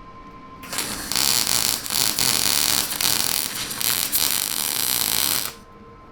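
Arc welding on a steel mini bike frame neck: a loud, crackling hiss that starts about a second in and runs for about five seconds with a few brief breaks, then cuts off.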